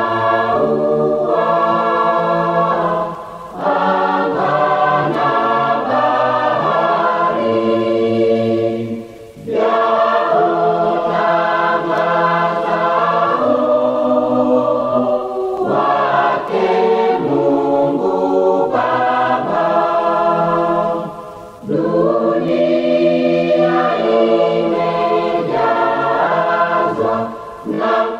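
Large church choir singing a hymn in full harmony, holding long chords in phrases with brief breaks between them.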